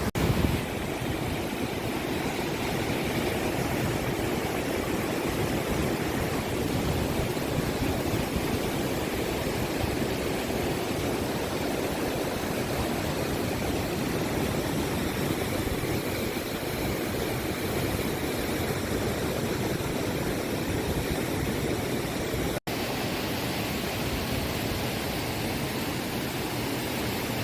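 Steady rushing of water from a tall waterfall, heard close up as an even, unbroken noise. There is a short bump right at the start, and the sound drops out for an instant near the end.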